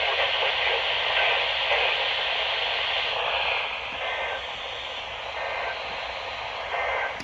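Radio static: a steady hiss from a radio receiver with no clear voice on the channel, dropping somewhat in level about halfway through.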